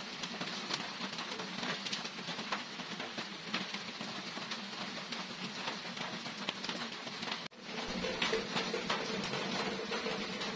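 Small light clicks and taps of spices, shallots and garlic cloves being set down by hand on a stone mortar, over a steady hiss of background noise, with a brief break about seven and a half seconds in.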